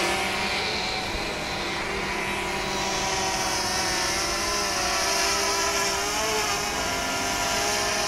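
DJI Mavic Air quadcopter's propellers whining as it climbs just after takeoff: a steady stack of tones that wavers slightly in pitch.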